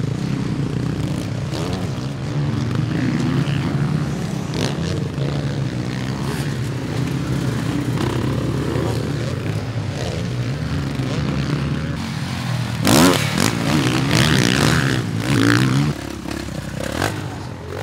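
Several motocross bikes' engines running and revving on a dirt track, the pitch rising and falling as riders work the throttle through a turn. A louder stretch of hard revving from a nearer bike comes about three-quarters of the way through.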